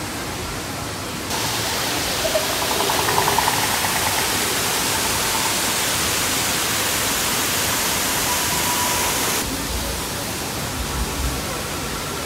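Steady rushing of falling water from a waterfall, louder between about one and nine seconds in, with faint voices of people in the background.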